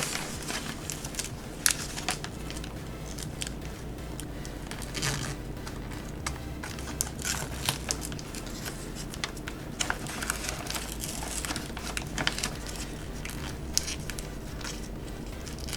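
Paper-backed adhesive puzzle sheet crinkling and crackling as it is handled, peeled and pressed down by hand, in irregular bursts of rustle.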